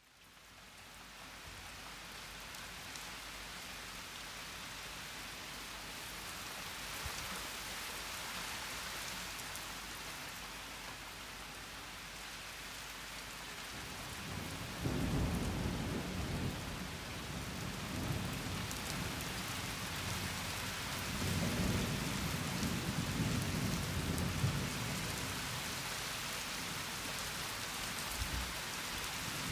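Steady rain falling, with thunder rumbling in low and heavy about halfway through and rolling on again a few seconds later.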